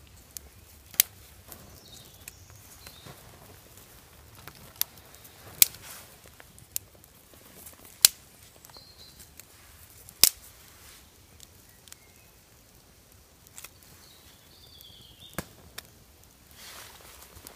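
Ferrocerium fire steel struck hard again and again to light tissue tinder, a sharp scraping crack every one to three seconds.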